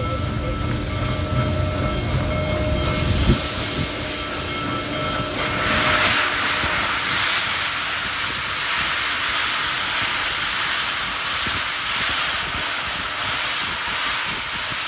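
Union Pacific Big Boy 4014, a 4-8-8-4 articulated steam locomotive, rolling slowly with a low rumble. About five seconds in, a loud hiss of steam venting from its open cylinder cocks starts and surges unevenly until the end.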